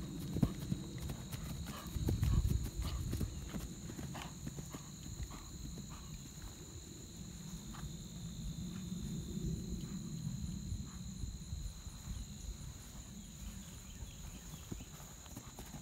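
Horse cantering on grass: dull, irregular hoofbeats over a low rumble, loudest in the first few seconds.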